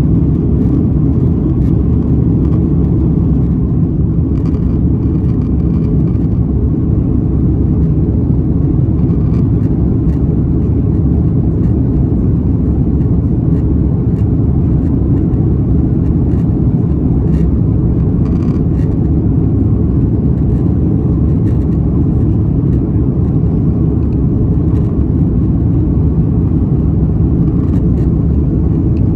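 Steady cabin noise inside an Airbus A330 airliner: an even, unbroken low rumble of engines and airflow, with a few faint clicks and rattles here and there.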